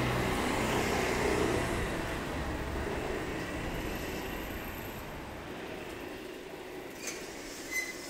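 A motor vehicle passing close by on a street, its engine hum and road noise fading as it moves away. Two short clicks near the end.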